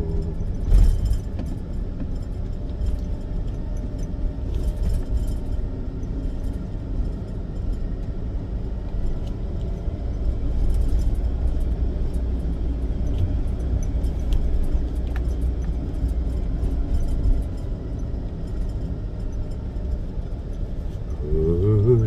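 Steady low rumble of a car driving along a paved road, with music playing faintly; a singing voice comes back in near the end.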